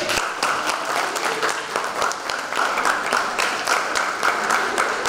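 An audience of children and adults applauding, a dense run of many hand claps at a steady level.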